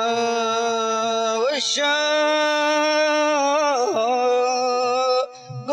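Male voices singing a Gulf Arabic shilah, layered and unaccompanied, holding long drawn-out notes that slide between pitches, with a brief break near the end.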